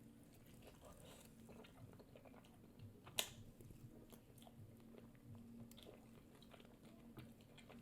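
Faint close-up chewing and mouth sounds, with one sharper click about three seconds in.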